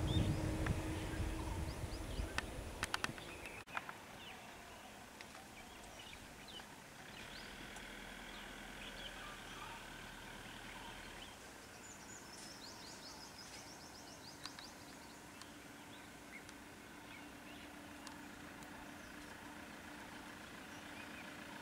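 A vehicle engine rumbling low for the first few seconds, cut off abruptly about three and a half seconds in. Then faint outdoor ambience with birds chirping, including a quick run of chirps about twelve seconds in.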